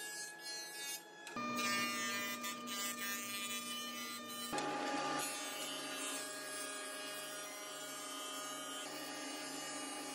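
Woodworking machines running with a steady whine: first a jointer, then a Grizzly G0454 thickness planer as walnut boards feed through. The sound changes abruptly twice, and a low pulsing hum runs under the planer.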